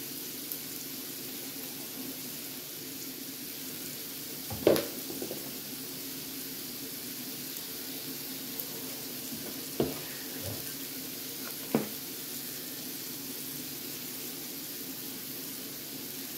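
Shrimp and steak sizzling in a hot pan, a steady frying hiss. A few sharp clicks and knocks sound over it, the loudest about five seconds in and others around ten and twelve seconds.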